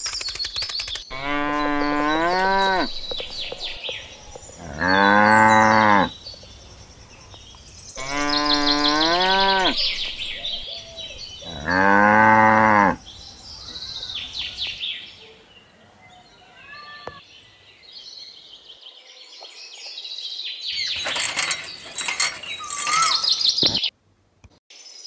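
Cattle mooing: four long moos a few seconds apart, over birds chirping.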